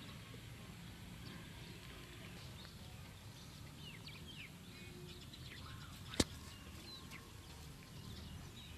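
Faint outdoor ambience with scattered short bird chirps over a low steady rumble, and a single sharp click about six seconds in.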